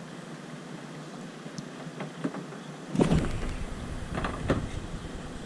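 Steady wind and sea noise out on an open boat, with a low wind rumble on the microphone from about three seconds in and a few short knocks.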